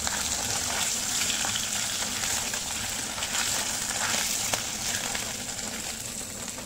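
Fish pieces marinated in turmeric and salt frying in hot oil in a kadai: a steady sizzle with fine crackling.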